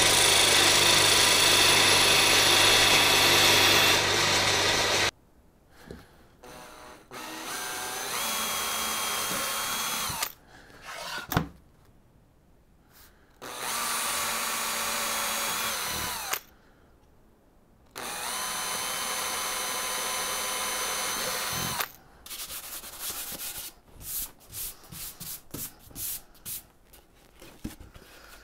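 An electric belt-and-disc sander grinds down the protruding tips of steel screws for about five seconds, throwing sparks, and then stops abruptly. A cordless drill then drives screws into a board in three separate runs of a few seconds each, the motor whining steadily, followed by light knocks and clatter as the board and screws are handled near the end.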